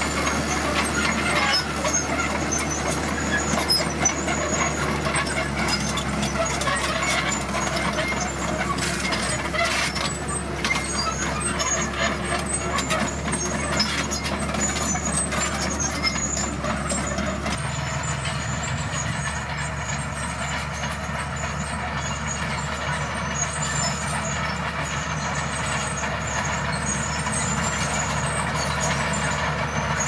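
Komatsu D41PX crawler bulldozer's diesel engine running steadily under load as it pushes soil, with clanking and knocking from the steel tracks and blade, busiest in the first half. The engine note changes about halfway through.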